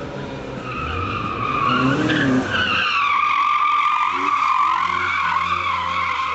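Dacia Logan's tyres squealing long and loud as the car is driven hard through a tight turn, the pitch wavering as it slides, with its engine running underneath. The squeal starts about a second in.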